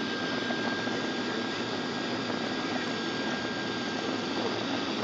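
Steady in-cabin roar of a jet airliner's turbofan engines and rushing airflow during the descent to land, with a thin steady whine over it that fades out near the end.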